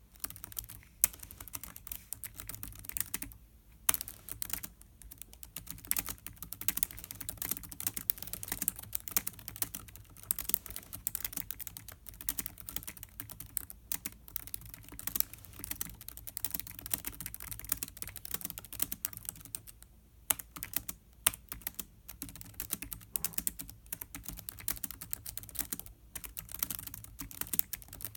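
Continuous typing on the built-in laptop keyboard of a 2016 Lenovo ThinkPad X1 Carbon: quick runs of light key clicks with brief pauses and now and then a louder single keystroke.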